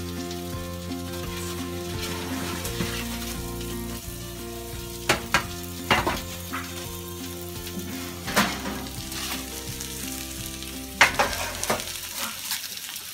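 Sizzling of hot roasted asparagus and filet mignon on foil-lined baking sheets fresh from the oven, with several sharp knocks as the trays are handled and set down, the loudest near the end.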